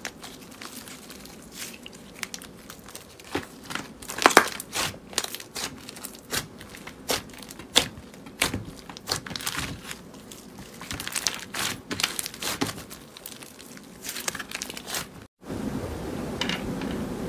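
Thick red slime studded with little beads being stretched, folded and poked by hand, giving a run of crackling pops and snaps. The pops are loudest about four seconds in. Near the end the sound breaks off for a moment, and a steady hiss follows.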